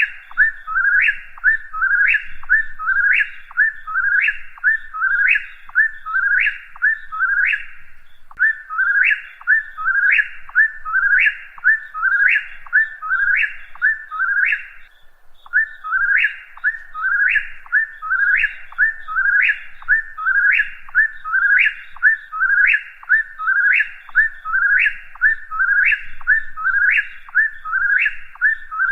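Whip-poor-will singing: its whistled 'whip-poor-will' phrase, ending in a rising sweep, repeated over and over at about one and a half a second, with two short breaks, about a third and about halfway through.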